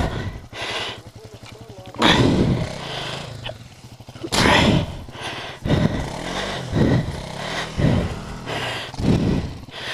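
Single-cylinder dual-sport dirt bike engine idling, then revved in a series of short throttle bursts about once a second as the bike is worked free from deep grass on a slope.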